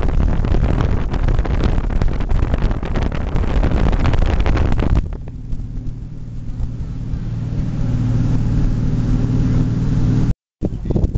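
Wind buffeting the microphone and water rushing past the hull of a speed ferry under way. About five seconds in, the rushing drops away and the ferry's engines are heard as a steady low drone.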